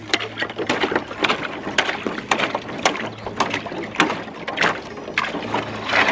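A stick breaking and stirring thin ice on a frozen bathtub water trough: repeated sharp cracks and knocks of ice, about two a second, with water sloshing.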